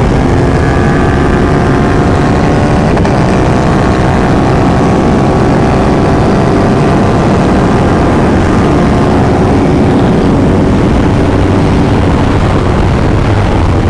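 Aprilia Tuono V4 1100 Factory's V4 engine pulling hard at high revs, its pitch slowly climbing for about ten seconds as the bike gathers speed. Heavy wind rush on the microphone runs underneath.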